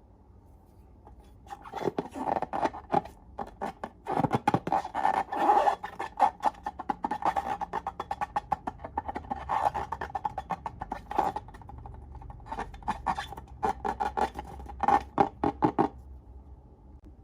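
Slime being squeezed and worked by hand: dense runs of sticky clicks and popping crackles in uneven flurries, starting after a second or so and stopping shortly before the end.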